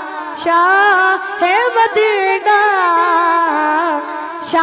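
A boy singing solo into a microphone: a Punjabi devotional naat, sung in long held notes that waver and glide in pitch.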